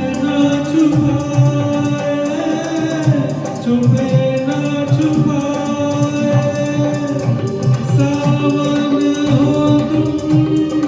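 A solo voice singing a Hindustani semi-classical song, with long held notes that glide between pitches, over tabla accompaniment.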